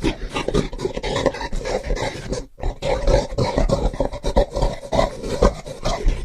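Gorilla vocalising in a rapid run of rough grunts and roars, broken by a brief pause about two and a half seconds in.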